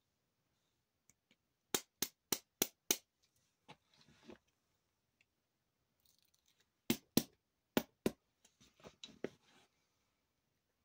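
Metal clicks from an 1851 Navy cap-and-ball revolver's action as it is handled: a run of five sharp clicks about a third of a second apart about two seconds in, then four more about seven seconds in, with softer handling noises between.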